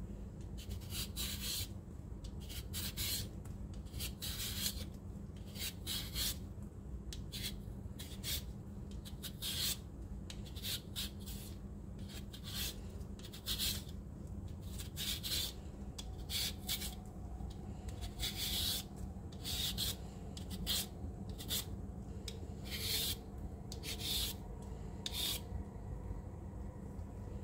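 Y-peeler blade scraping the skin off a raw Chinese sweet potato in short repeated strokes, roughly one a second.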